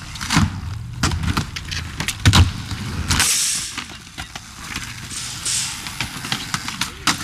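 Skateboard wheels rolling over rough concrete with a low rumble, broken by several sharp clacks of the board hitting the ground. A brief hiss comes about three seconds in, and the rumble drops away after it.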